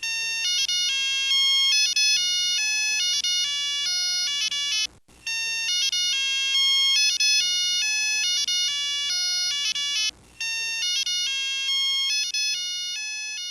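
Electronic alarm-clock melody: a high, chiming tune of quick notes that plays through a phrase of about five seconds, breaks off briefly, and starts again, three times over, fading near the end.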